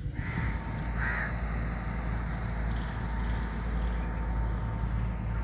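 Crow cawing twice near the start, about a second apart, with a few short high bird chirps around the middle, over a steady low rumble.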